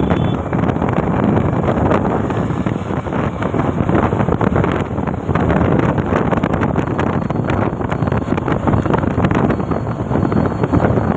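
Wind buffeting the microphone of a phone held out on a moving vehicle, a loud steady rush with road and engine noise underneath.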